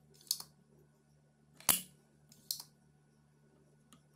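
Spring-loaded desoldering pump snapping and being cocked while a capacitor is desoldered: four sharp clicks, the loudest about one and a half seconds in, over a faint steady low hum.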